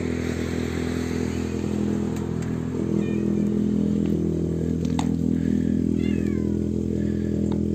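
A tabby cat meowing: a short meow about three seconds in, then a longer meow falling in pitch about six seconds in. Under it runs a steady low motor hum.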